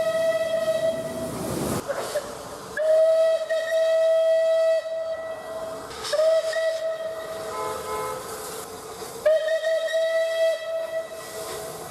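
A train whistle blown in repeated blasts on one steady high note: a blast that ends about a second in, then three more of up to two seconds each. A short, lower-pitched sound comes between the last two blasts, with a faint hiss in the gaps.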